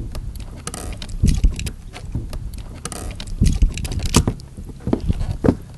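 Splashing and a series of irregular knocks and thumps against a plastic kayak while a fish is netted alongside and brought aboard, with wind buffeting the microphone.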